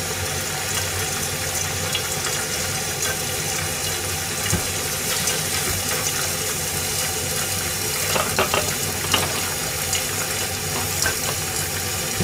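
Clams steam-frying in hot garlic olive oil under the lid of a stainless saucepan: a steady sizzle, with a few small pops and crackles about eight to nine seconds in.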